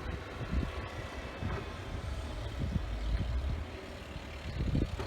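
A snowblower's small engine running steadily across the street, heard as a low rumble, with wind buffeting the microphone in uneven gusts.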